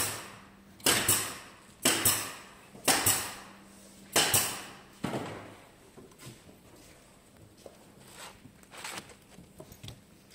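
A run of sharp wooden knocks from beehive frame assembly work, about one a second, each a quick double hit. After about five seconds they give way to lighter, scattered clicks and taps, over a faint steady hum.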